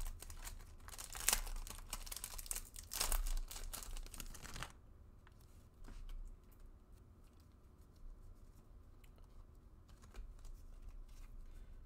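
The foil wrapper of a 2020 Bowman baseball card pack being torn open and crinkled by hand for about the first five seconds. After that it is much quieter, with faint clicks and slides as the cards are handled and sorted.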